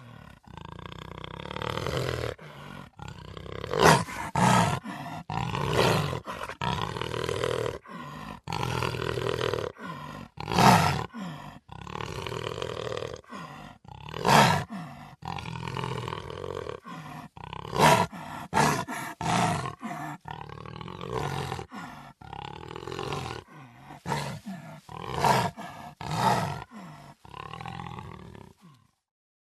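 Cheetah growling, a continuous low vocal rumble broken every few seconds by sudden loud snarling bursts.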